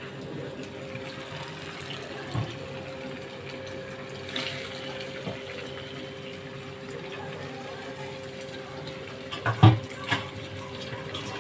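Water running from a kitchen tap into a steel bowl. A few knocks come through, with the loudest cluster near the end.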